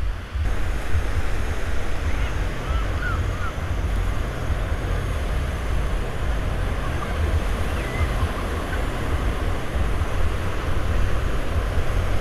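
Sea surf washing onto a sandy beach, a steady rushing noise, with wind buffeting the microphone as a continuous low rumble.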